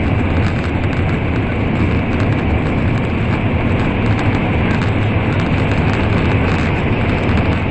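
Shinkansen bullet train running at speed, a steady loud rumble of wheels on the rails and rushing air heard from inside the passenger car.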